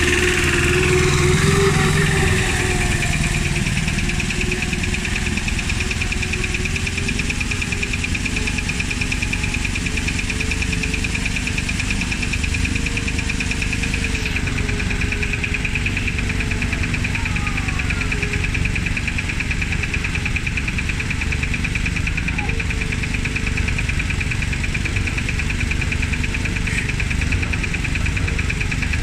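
Single-cylinder Lombardini diesel engine of a YET-510 two-wheel tractor running steadily under load, pulling a loaded trailer up a muddy slope, with an even rapid beat.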